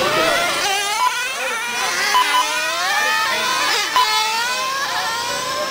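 Several 1/10 scale nitro RC cars' small glow-fuel engines revving up and down as they lap the track, their overlapping pitches rising and falling. A few short beeps cut in, about a second in, twice around two seconds, and again at four seconds.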